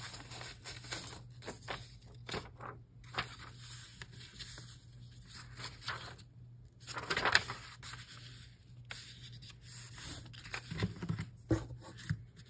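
Sheets of printed paper being handled: rustling, sliding and shuffling in short irregular scrapes and taps, with a louder rustle about seven seconds in.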